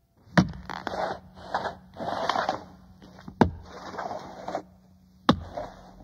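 Spooky sound-effect recording played from a cassette. A few sharp, heavy knocks come a couple of seconds apart, with bursts of scraping noise between them over a faint steady hum.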